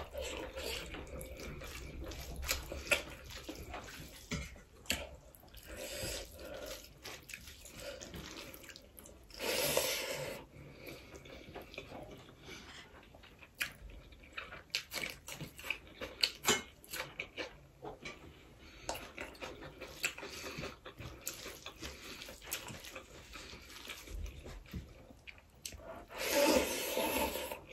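Chewing and mouth sounds of a person eating rice and curry by hand, with many small clicks and smacks. There are two louder stretches, about ten seconds in and near the end.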